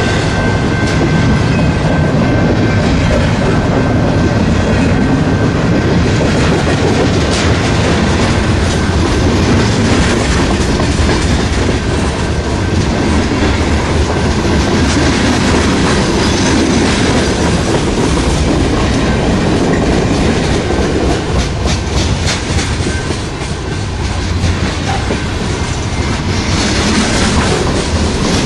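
Freight train cars rolling past close by at speed: a loud, steady rumble with the clickety-clack of wheels over the rail joints.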